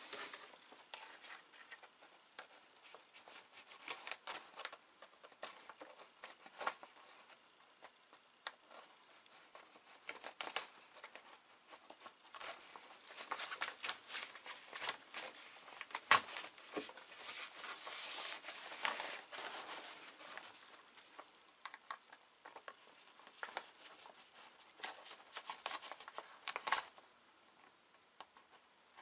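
Seam ripper cutting the stitches along the luff sleeve of a Dacron sail: faint, irregular snips and ticks, with the stiff sailcloth crinkling as it is pulled and handled.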